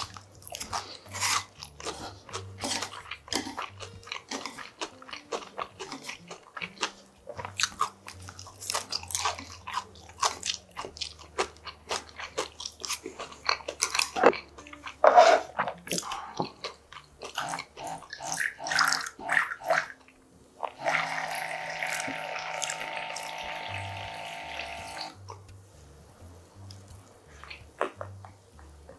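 Close-up crunching and chewing as bites are taken from a crispy shredded-potato pancake (gamjajeon). About two-thirds of the way in, a steady humming sound runs for around four seconds.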